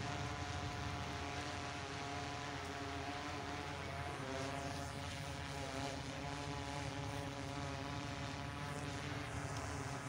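Propellers of a small aircraft humming overhead: a steady tone with several pitches that shift about four seconds in.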